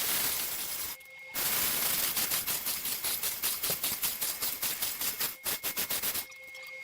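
Impact wrench hammering in a rapid rattle of blows that slows to separate knocks near the end, after a second of hissing noise.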